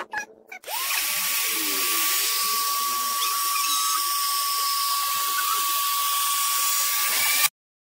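Electric air pump inflating an inflatable paddling pool. Its motor spins up about a second in to a steady high whine with a strong rush of air, then stops abruptly near the end.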